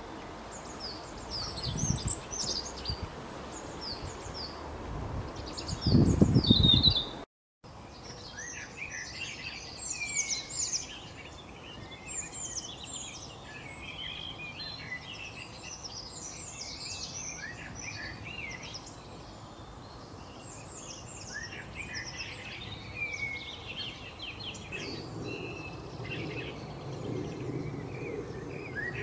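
Several small songbirds chirping and trilling together, many short quick notes overlapping. A loud low rustle about six seconds in, then the sound drops out completely for a moment just after seven seconds before the birdsong resumes.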